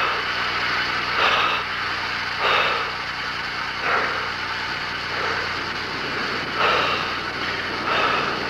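A person breathing hard and rhythmically during exertion on a stationary exercise bicycle, a loud breath about every second and a half, over a steady low hum.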